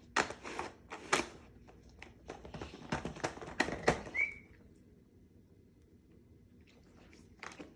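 Clicking and knocking of a dog treat puzzle's pieces as a puppy works at it, with one short, high, rising squeak about four seconds in. It then goes quiet for the last few seconds.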